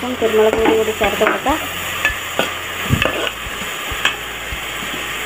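A steel spoon stirring diced carrots and green beans in hot oil in a steel pan: the vegetables sizzle while the spoon scrapes and knocks against the metal, with sharp clicks throughout.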